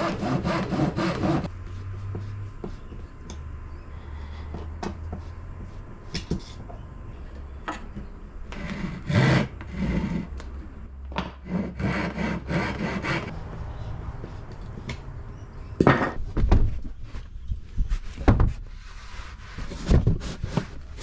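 Hand saw cutting a scrap-wood board in quick back-and-forth strokes, stopping about a second and a half in. A second run of sawing strokes comes midway. Several sharp knocks follow near the end.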